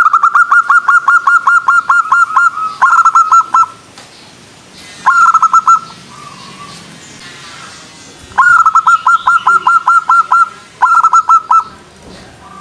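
Zebra dove (perkutut) singing: rapid runs of short, clipped cooing notes, about seven a second, in five phrases: a long run, two short ones, another long run and a short closing phrase.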